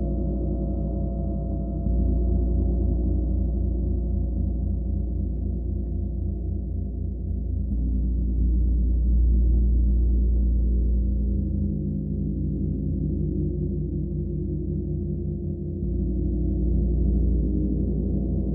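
Gong resonating: a sustained low hum thick with overtones, swelling louder about two, eight and sixteen seconds in.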